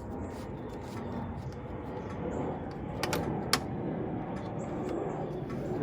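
A few sharp clicks and light plastic rattling as engine wiring connectors are unscrewed and pulled off, over a steady low background noise.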